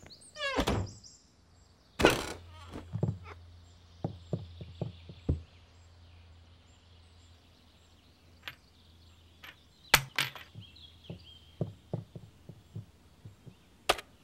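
A series of scattered knocks and thumps, the loudest about two seconds in and around ten seconds in, over a low hum that fades out about halfway through.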